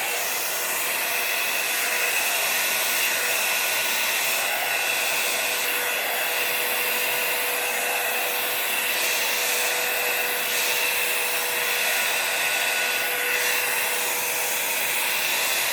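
Hair dryer with a roller brush attachment running steadily on a raised fan setting, an even rushing whoosh with a steady mid-pitched whine.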